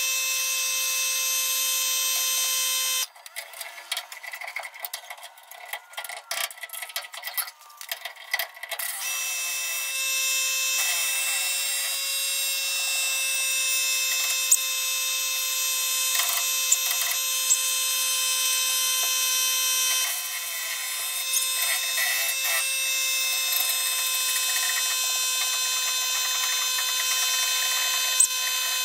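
A steady high-pitched whine with many overtones. It cuts out about three seconds in and returns near nine seconds; while it is off, quick clicks and knocks of tool work on metal come through, and a few sharp ticks follow later.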